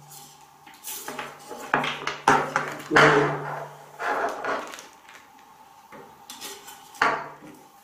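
Handling noise of a plastic-and-metal CCTV bullet camera being turned over in the hands: a series of separate clicks and knocks, the loudest about three seconds in.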